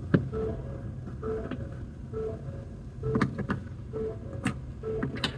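Hand screwdriver driving a Phillips screw into a plastic tailgate trim panel, with a few sharp clicks. Behind it a short beep repeats about once a second.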